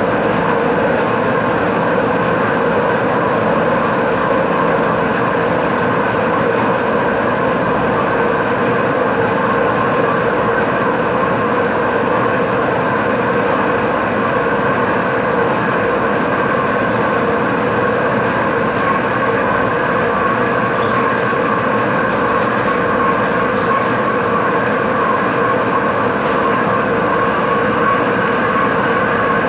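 Metalworking machine tool running steadily, a constant loud mechanical noise with a steady hum.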